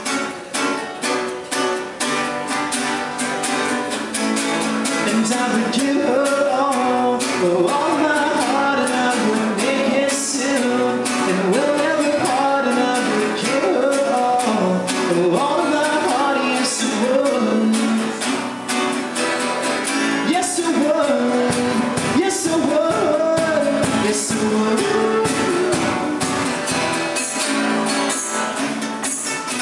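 Two acoustic guitars strummed and picked together, live and unamplified-sounding, with a voice singing a melody over them from about four seconds in until near the end.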